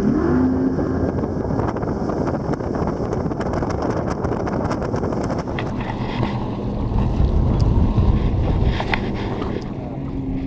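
Motorboat running across the water, its motor rising in pitch just after the start, with wind buffeting the microphone.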